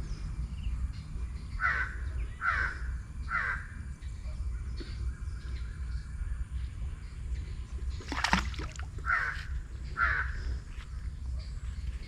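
A bird calling repeatedly: three short, falling calls a little under a second apart, then two more near the end. A sharp knock about eight seconds in is the loudest sound, over a steady low rumble.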